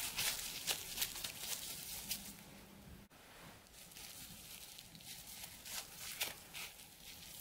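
Cling film crinkling and rustling as hands press and turn a wrapped disc of pastry dough, in short sharp rustles that are busier and louder in the first three seconds and fainter after a brief break.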